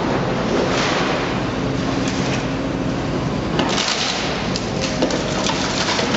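Heavy machinery running with a continuous noisy grinding and crackling over a low hum.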